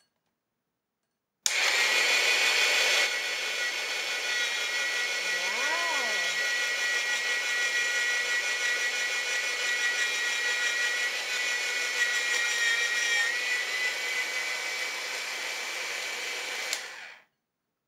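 Presto Salad Shooter's electric motor running with a steady high whine as it grinds walnuts through its shredding cone: a little loud, a little noisy. It starts suddenly about a second and a half in and stops shortly before the end.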